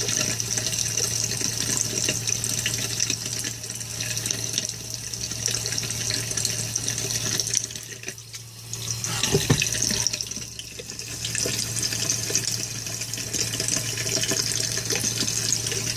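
Water running steadily from a tap into a sink. The flow drops briefly about eight seconds in, and there is a single knock about a second later.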